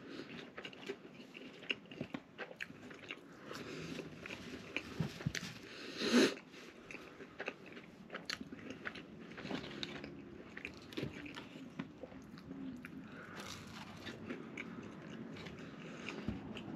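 Close-miked chewing of a mouthful of burger: soft wet mouth sounds with small crunches and clicks, and one louder noise about six seconds in.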